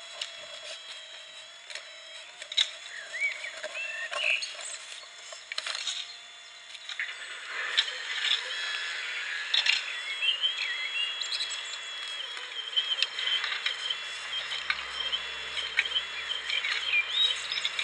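Radio-controlled model Liebherr R944B excavator working, its drive giving a thin steady whine that steps up and down in pitch as the arm and bucket move, with birds chirping around it.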